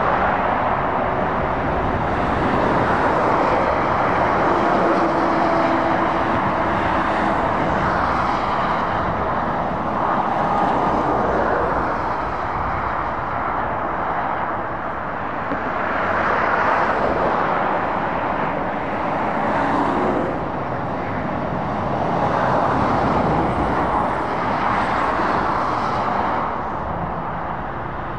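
Dual-carriageway traffic: lorries and cars passing one after another, the tyre and engine noise swelling as each vehicle goes by and easing between them.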